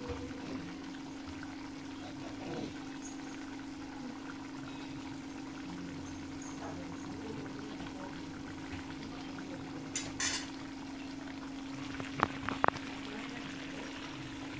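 Thick curry gravy simmering and bubbling in a kadai on a gas burner, over a steady low hum. A few sharp clicks near the end are the loudest sounds.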